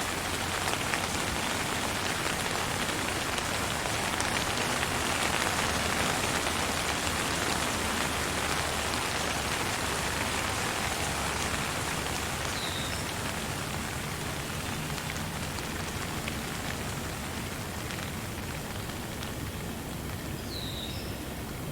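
Steady rain falling, a dense even patter with no thunder, easing slightly in the second half. Two brief faint high chirps cut through it, about halfway and near the end.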